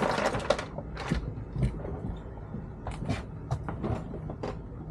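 Irregular knocks and clatters of fishing gear being handled on a boat while the lines are brought in, over a low steady hum.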